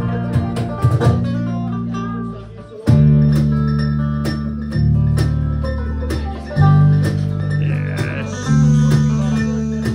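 Bluegrass band playing live, an instrumental passage: acoustic guitar, banjo and electric guitar picking over a bass line that changes note every second or two. The sound drops briefly just before three seconds in, then the full band comes back in.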